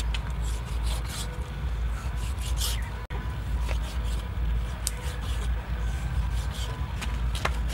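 Large kitchen knife slicing raw beef heart on a wooden chopping block, with scraping strokes and a few short sharp knocks of the blade on the wood, over a steady low rumble.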